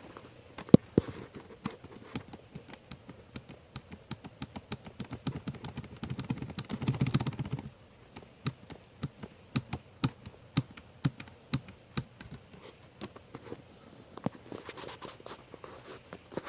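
Irregular light taps and clicks of small items being handled, with a louder rustling stretch from about six to seven and a half seconds in.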